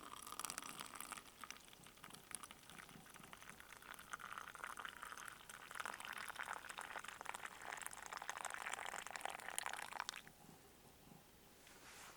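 Liquid being poured steadily for about ten seconds, then cut off suddenly.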